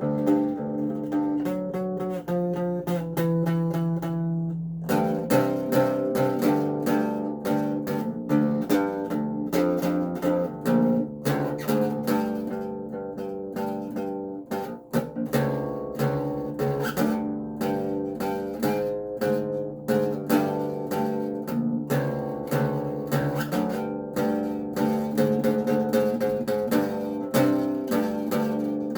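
Acoustic bass guitar being plucked, playing a continuous line of notes. For the first five seconds or so the notes ring out longer, then the playing turns into a quicker run of sharply plucked notes.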